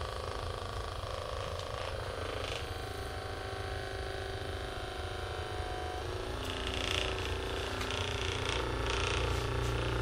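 Handheld percussion massage gun running, its head hammering rapidly against the upper back as a steady low buzz. It grows a little louder and harsher about two thirds of the way through.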